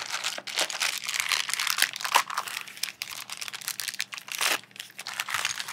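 Small clear plastic parts bag crinkling and crackling as it is handled in the hands, a dense run of crackles.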